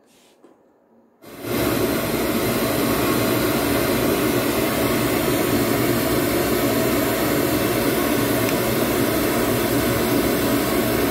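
Loudspeaker playing a steady broadband test-noise signal for an acoustic frequency-response measurement. It switches on about a second in and holds a constant level.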